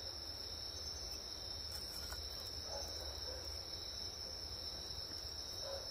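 Crickets trilling in a steady, unbroken high-pitched chorus.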